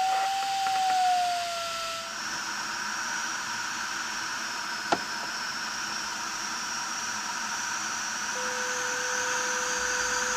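Steady airflow hiss in a glider cockpit, with the electronic variometer's audio tone. The tone rises slightly and then falls over the first two seconds. A lower steady tone comes in near the end and lifts a little in pitch. There is a single sharp click about five seconds in.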